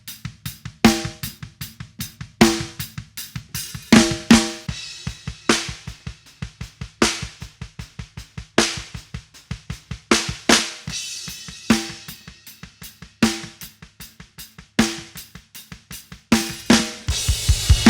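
Rock drum kit playing a steady beat: snare hits with a pitched ring at regular intervals over fast, even low drum strikes, with cymbals. About a second before the end it turns louder and fuller in the low end.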